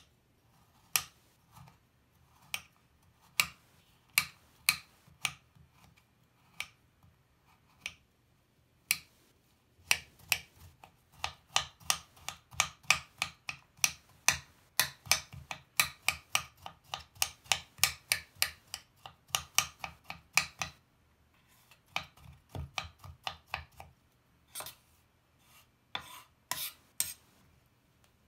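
Kitchen knife chopping a crumbly bubble bar into small pieces on a marble board, each stroke a sharp click of the blade through the bar onto the stone. The chops come in scattered single strokes at first, then in a fast steady run of about three or four a second through the middle, then sparse again near the end.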